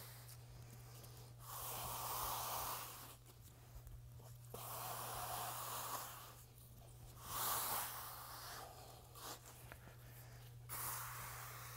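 Hand trowel scraping and swishing across wet urethane modified concrete as it is spread out, in a string of strokes about a second long each with short pauses between.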